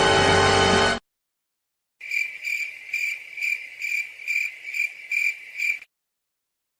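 A music clip ends abruptly about a second in. After a second of silence, a cricket chirps in an even rhythm, about two to three chirps a second, for nearly four seconds, then stops.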